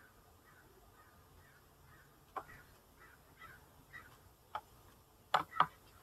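A bird calling faintly in a steady series of short calls, about two a second. A few sharp knocks come through it, the loudest two close together near the end.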